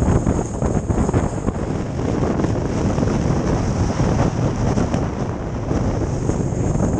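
Very strong storm wind buffeting the microphone: a loud, continuous rumbling noise with faint crackles through it.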